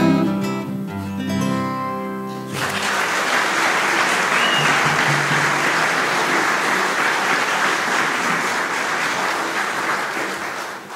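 The song's closing chord on acoustic guitars and fiddle, held for a couple of seconds. About two and a half seconds in, the audience breaks into steady applause, which fades out near the end.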